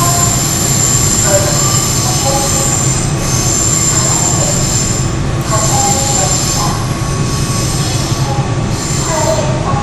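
Seoul Metro 4000-series subway train heard from inside the car while running: a steady rumble of wheels on rail, with high-pitched wheel squeal coming and going in stretches of a second or two.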